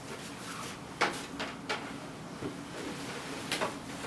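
Handling noises as a person moves about at a table: a few sharp clicks and knocks, the loudest about a second in, with rustling, over a low steady hum.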